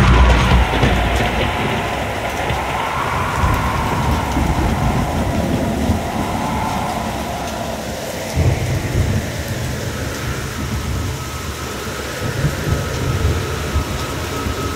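Ambient sound-design soundtrack: a steady rushing noise like heavy rain with a low rumble under it. The rumble grows stronger about eight seconds in, and a faint tone slowly rises and falls in the first few seconds.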